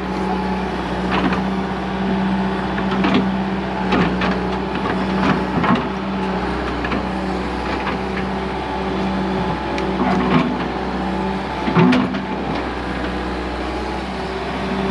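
John Deere 120 excavator's diesel engine running steadily under load as the bucket works the riprap slope. Rock knocks and clatters several times, loudest about twelve seconds in.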